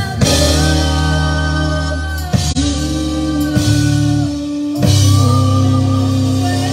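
Live rock band playing, with drum kit and electric guitars and a woman singing lead.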